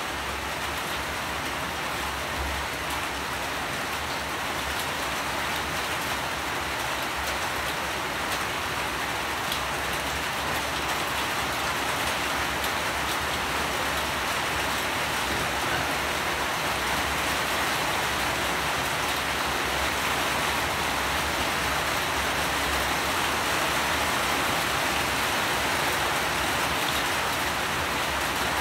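Steady rain falling: a dense, even hiss with faint scattered drop ticks, gradually getting a little louder.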